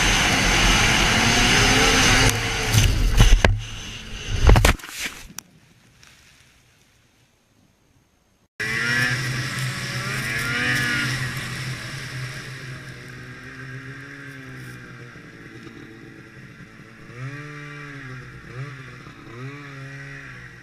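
Loud snowmobile engine and wind noise on a helmet camera, with several hard knocks between about two and a half and four and a half seconds in. The sound then drops out for a few seconds. After that a snowmobile engine revs up and down again and again as it rides a trail.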